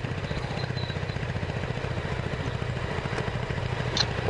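Motorcycle engine idling steadily at a standstill, an even low pulse, with a small click about four seconds in.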